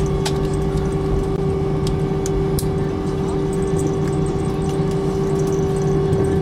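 Airbus A320 cabin noise during the landing rollout: a steady engine hum with a constant mid-pitched tone over a low rumble from the runway. A few sharp rattles sound in the first three seconds.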